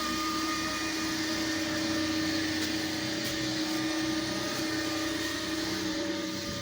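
Pressure-washing rig's engine running steadily, a constant drone with a held hum.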